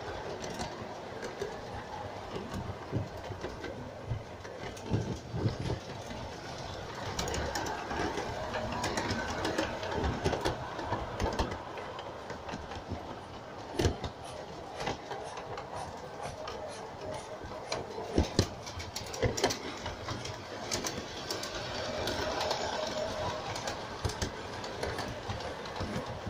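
LGB G-scale model train running along its track, heard from on board a wagon: a steady rumble of wheels and motor with many irregular clicks and knocks.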